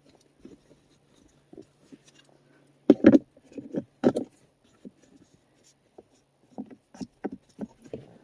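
Plastic clicks and knocks of a cup holder insert being handled and fitted into a car's centre console, with two louder knocks about three and four seconds in.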